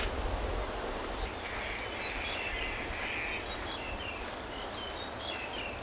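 Outdoor ambience: small birds chirping now and then, short high calls scattered throughout, over a steady low background rumble.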